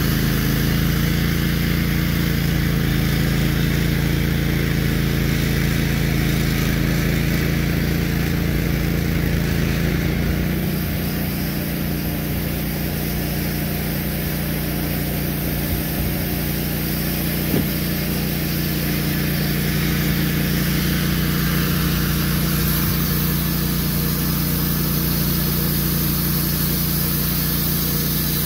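Woodmizer LT15 GO portable band sawmill's gasoline engine running steadily, its tone changing about ten seconds in.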